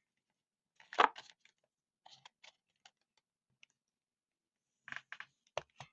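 Fidget toys being handled and set into the trade: scattered light clicks and taps of plastic, a louder knock about a second in and a quick run of taps near the end.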